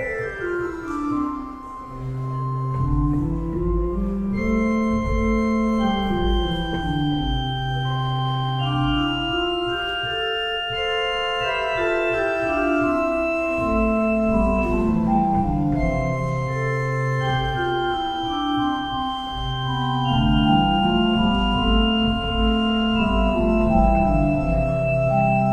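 A Casavant pipe organ plays three-voice counterpoint on 8' stops. Long held notes sound against quick stepwise runs that climb and fall, over a low pedal line.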